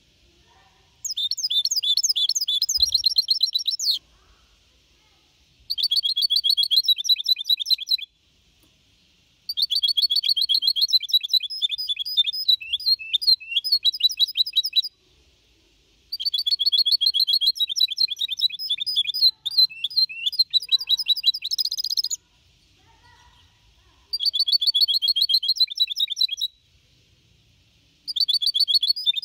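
A young mixto, a goldfinch-canary hybrid, singing a song of the Copia Malaga style: fast, high trilled phrases of several seconds each, six bursts separated by short pauses.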